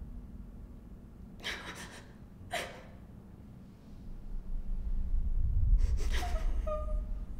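Sharp, breathy gasps or sniffs: two short ones about a second apart, then a longer gasp about six seconds in. Under them a low rumble swells up from about four seconds in.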